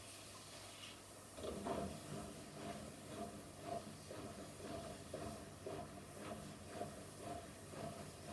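Electrolux washing machine working ahead of its spin, with its drum turning slowly. About a second and a half in, a rhythmic sound starts and repeats about twice a second.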